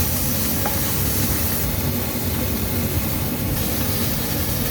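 Two chicken breasts frying in oil in a hot stainless steel pan, just flipped to their second side, with a steady sizzle and hiss. A low rumble runs beneath it.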